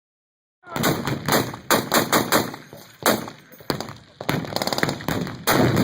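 Machine-gun fire: after a moment of silence, short bursts and scattered shots, then a long fast burst of automatic fire from a little past the middle.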